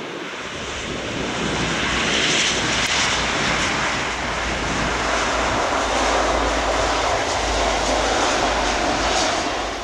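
Boeing 777 twin jet engines at high thrust as the airliner rolls past along the runway on its takeoff run. The loud, steady roar builds over the first couple of seconds and then holds.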